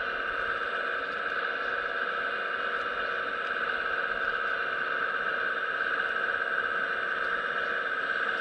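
Hydraulic pump of a 1:15-scale RC Hitachi ZX135US excavator running with a steady whine while the boom and bucket work the soil, with a few faint ticks.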